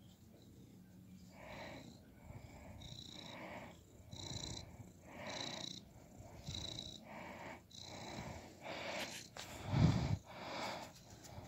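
Domestic cat purring close to the microphone while being stroked, in a steady rhythm of about one swell per second as it breathes in and out. A louder, dull bump comes near the end.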